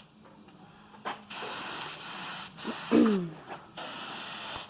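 Paint being sprayed onto a truck frame: a hiss in several bursts of a second or so, each starting and stopping abruptly as the sprayer is triggered on and off.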